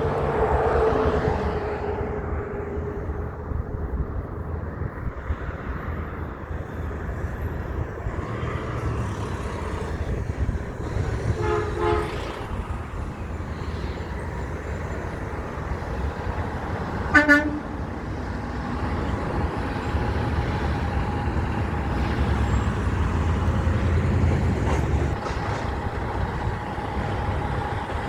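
Heavy trucks driving past one after another, their engine rumble swelling and fading. Two short horn toots sound, one about twelve seconds in and a louder one about seventeen seconds in.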